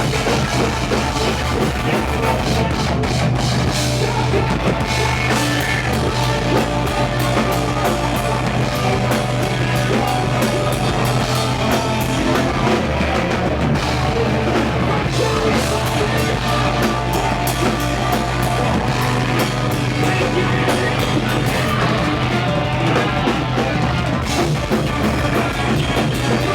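Rock band playing live, loud and without a break, with a drum kit driving it.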